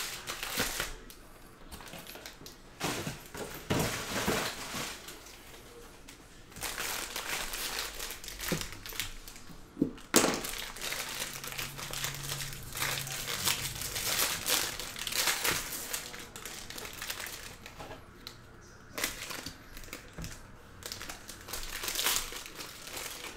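Foil wrapper of a Bowman Draft Super Jumbo trading-card pack crinkling in repeated bursts as it is handled and torn open, with one sharp crack about ten seconds in.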